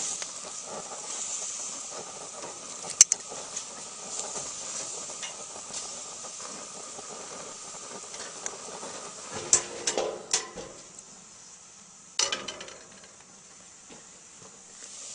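Steaks sizzling on a grill grate, a steady high hiss. A few sharp metal clinks and clicks break in, most of them in the middle, and the sizzle is quieter near the end.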